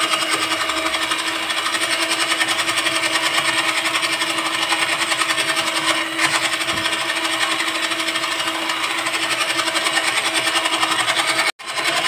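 National electric hand mixer running steadily, its twin wire beaters churning through cake batter as eggs are beaten in. There is a steady motor whine with a fast pulsing, broken for an instant near the end.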